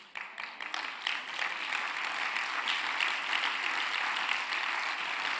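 Church congregation applauding, building up over the first second and then holding steady.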